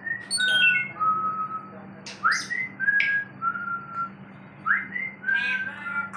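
African grey parrot whistling a short phrase three times, each a quick rising note followed by lower held notes.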